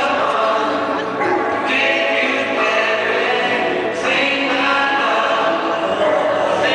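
Choral music: a choir singing sustained chords.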